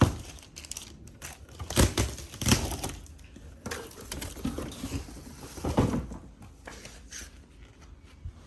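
Unpacking a mixer grinder: packaging rustles and crinkles, with a few sharp knocks as the jars and parts are handled and set down.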